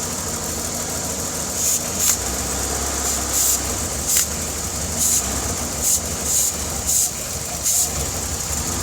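Car engine idling with a vacuum hose pulled off the intake, letting in unmetered air: the idle changes and runs unevenly, the sign of a vacuum leak. Short hissing bursts come and go through it.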